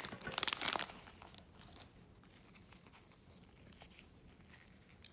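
Foil trading-card pack wrapper crinkling for about the first second, then near quiet with a few faint ticks as the cards are handled.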